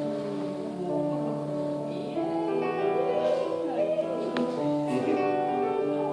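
Background music of sustained piano or keyboard chords, with a singing voice carrying a wavering melody over it.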